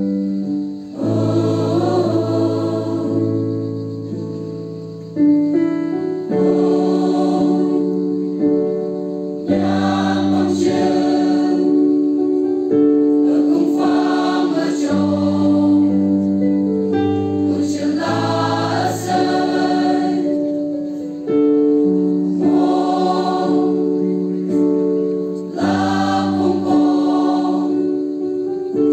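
Mixed choir of young men and women singing in harmony, holding chords that change every few seconds.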